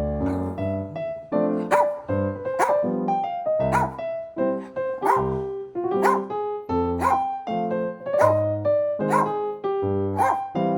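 Background keyboard music with a dog's short sharp barks, about one a second.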